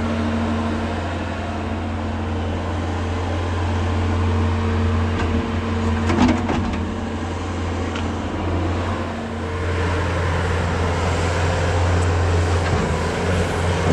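International 686 tractor engine running steadily: a low hum with a steady higher tone over it, and a few brief knocks about six seconds in.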